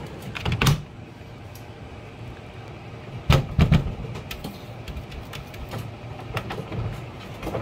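Pet drying cabinet's fan blowing air in a steady low hum, with a few knocks about half a second in and a louder cluster of knocks around three and a half seconds in.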